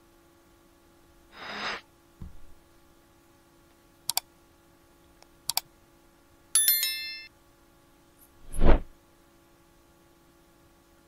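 Sound effects of a pop-up subscribe-button animation: a short whoosh and a low thud, two quick double mouse clicks, a bell chime ringing out, then a louder closing whoosh, over a faint steady hum.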